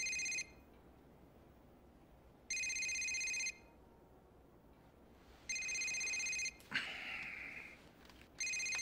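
Telephone ringing: one-second electronic trills repeating about every three seconds. A short scratchy noise comes between the third and fourth rings.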